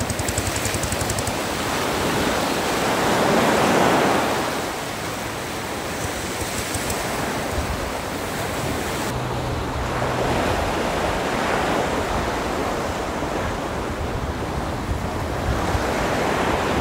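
Small sea waves breaking and washing up a sandy beach, the surf swelling and easing, loudest about four seconds in.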